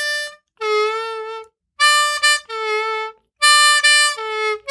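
Diatonic harmonica in C playing single notes of a slow riff: six notes, alternating between a higher and a lower pitch with short breaks between them. These are draw notes on holes 4 and 3, the lower one bent down a whole tone.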